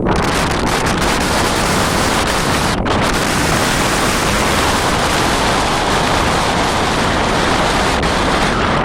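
Strong wind blowing steadily, a loud continuous rush, with wind buffeting the microphone.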